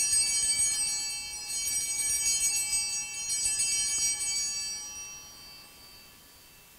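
Altar bells shaken repeatedly in a bright jingling peal, then ringing out and fading away over the last couple of seconds; the ringing marks the elevation of the chalice at the consecration of the Mass.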